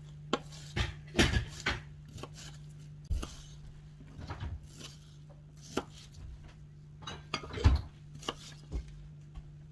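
Chef's knife chopping onion on a wooden cutting board: irregular knocks of the blade against the wood, a couple of them louder, about a second in and near the end.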